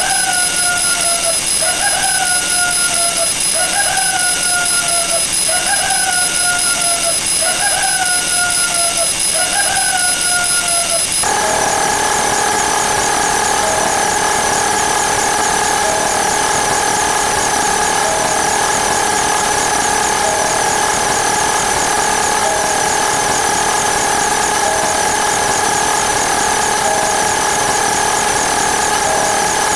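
Layered looping sound effects: a repeating falling chirp about once a second, which about eleven seconds in gives way to a denser, mechanical-sounding layer of steady tones with a rapid high ticking on top.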